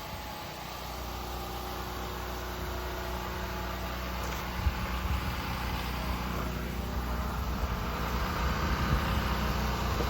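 An engine running steadily, slowly getting louder.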